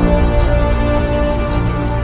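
Background music: sustained notes held over a steady bass.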